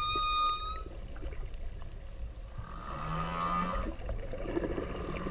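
Whale calls: a short high whistle in the first second, then a lower, longer call about two and a half seconds in, over a steady low background hiss.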